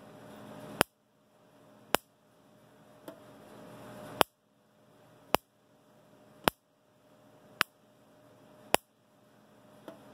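Dyna Charge 909 solid-state electric fence charger pulsing, each high-voltage pulse arcing from its fence terminal to a screwdriver tip as a sharp spark snap. The snaps come evenly about once a second, nine of them, one weaker, and jump a gap of close to an inch, the sign of a strong output.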